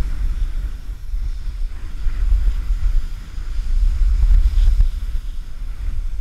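Wind buffeting an action camera's microphone while skiing downhill at speed, a loud low rumble that swells and dips.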